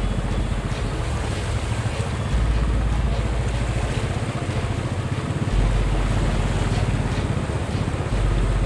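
Wind buffeting a phone microphone, a low rumble that comes and goes in gusts, over a steady rushing noise of water on flooded streets.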